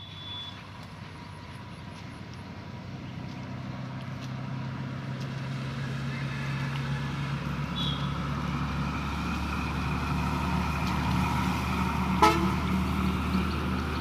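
A motor vehicle engine running with a steady low hum, growing gradually louder as it draws nearer, with one sharp click near the end.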